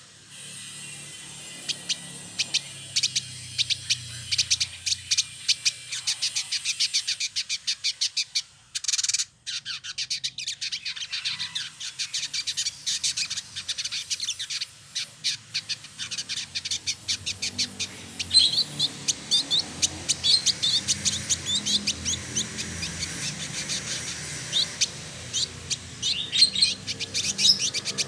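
Male village indigobird singing a fast, continuous stream of high, sharp chirps and twitters, several a second, running into rapid trills.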